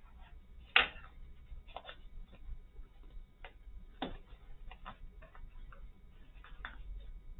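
Irregular light clicks and taps from a pushchair's shopping basket and frame being handled while the basket is fitted. The sharpest clicks come about a second in and again near four seconds.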